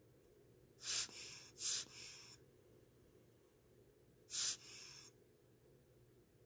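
Three short puffs of air from a hand air blower aimed at an open watch movement, two close together about a second in and a third about three seconds later, to try to set the balance and escapement moving.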